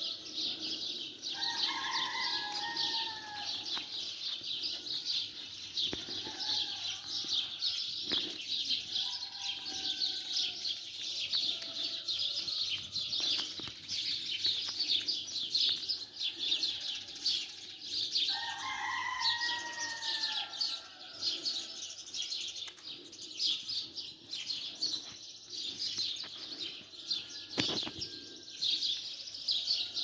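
A large flock of sparrows chirping in a dense, unbroken chatter in a tree at dawn. A rooster crows twice, about two seconds in and again a little past the middle.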